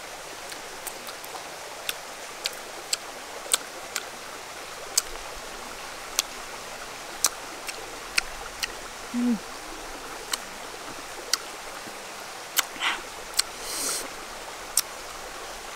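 Langsat fruit being peeled and eaten: a scattering of sharp, wet clicks from the peel cracking and the lips and mouth smacking while chewing, over the steady rush of a shallow stream.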